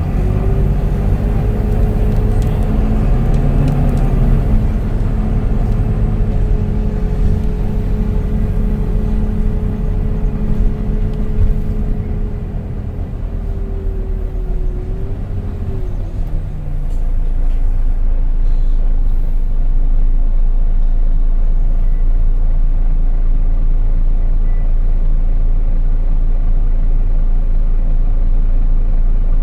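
Volvo B9TL double-decker bus heard on board, its drivetrain running with a steady rumble and a clear whine, the 'hoover' sound. The whine dips lower about fifteen seconds in, and the running gets louder a couple of seconds later.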